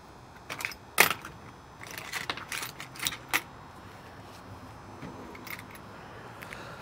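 Small metal hardware and hand tools clinking and rattling as they are handled. A series of sharp clinks comes in the first half, the loudest about a second in, followed by a few faint ticks later.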